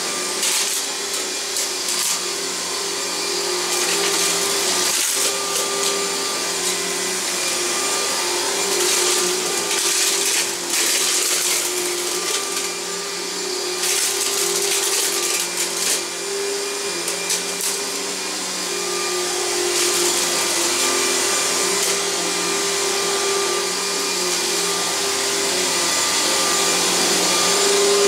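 Riccar 100 bagged upright vacuum cleaner running over carpet: a steady motor hum with a higher whine on top, under a rush of air that swells and eases now and then.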